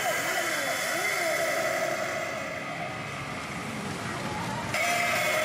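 Pachinko machine electronic sound effects, with sweeping rising-and-falling tones, as its reels line up three 3s for a jackpot. Near the end a louder music cue cuts in suddenly.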